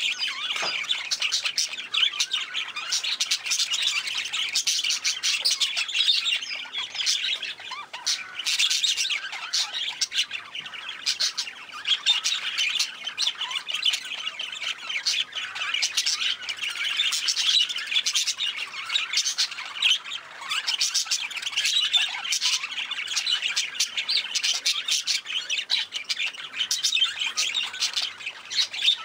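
A flock of budgerigars chattering without a break, many birds calling at once in a dense, high-pitched mix of chirps and calls.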